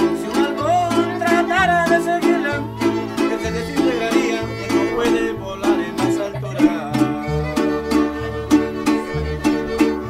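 Instrumental passage of Mexican-style string music: a violin plays a wavering melody with vibrato over a plucked-string accompaniment of steady rhythmic chord strokes and alternating bass notes. The violin is most prominent in the first few seconds.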